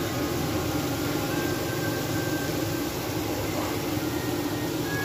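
Chicken and chopped coriander sizzling in oil on a large flat iron tawa, a steady hiss over a constant low rumble.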